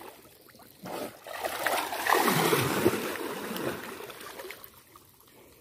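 Water splashing and sloshing. It builds about a second in, is loudest through the middle, and dies away before the end.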